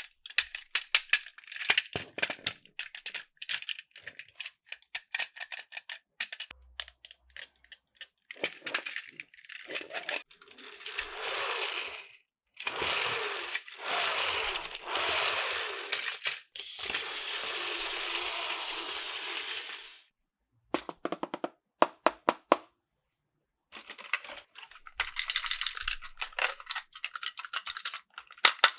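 Plastic toy train cars clicking and rattling as they are handled and coupled, with a steady whirring stretch of about ten seconds in the middle, from a battery-powered toy train running along plastic track.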